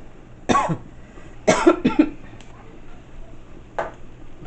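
A person coughing: one cough about half a second in, then a short run of coughs about a second later, and a fainter one near the end.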